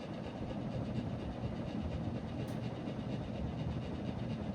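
Harbor Breeze Cobra Elite three-blade ceiling fan running at high speed: a steady rhythmic whoosh of the blades, like a helicopter, over a loud motor buzz.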